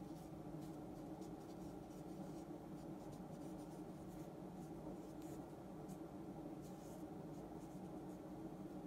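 Brush-pen tip stroking across paper in Japanese calligraphy: faint, short scratches at irregular intervals over a steady low hum.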